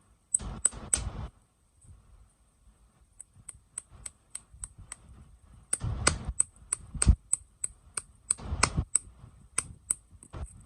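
Plastic sweet and toy packaging being handled and opened by hand: many sharp plastic clicks, with three short bursts of crinkling.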